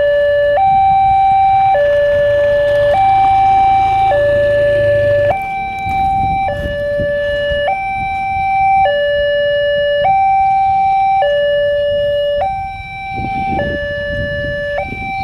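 Automatic level-crossing early warning alarm sounding through a horn loudspeaker: a slow two-tone hi-lo siren, each note held a bit over a second, warning of an approaching train. A low rumble runs underneath.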